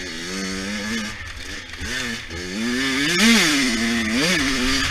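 A 100cc dirt bike engine being ridden, its revs rising and falling through the gears and throttle. It gives two quick sharp blips of revs near the end, the first the loudest.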